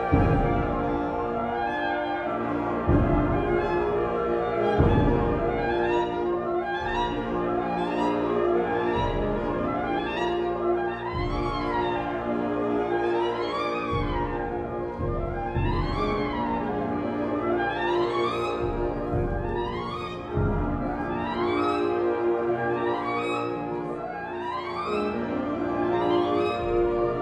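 Soprano saxophone and wind ensemble playing a contemporary concert work whose pitches come from the overtone series on B-flat. Held chords sound under quick rising-and-falling runs that repeat about every two seconds, with low thuds every few seconds.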